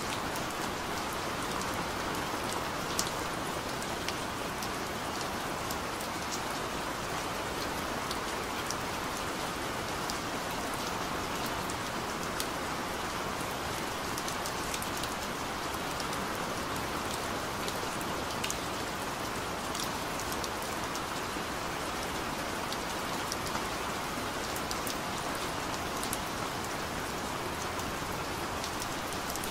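Steady rain, an even hiss with scattered sharp ticks of single drops, no thunder.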